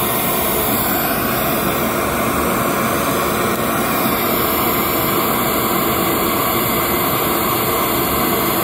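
Steady, even hiss of a test noise signal, pink noise, played through a loudspeaker as the stimulus for an RTA frequency-response measurement of a measurement microphone.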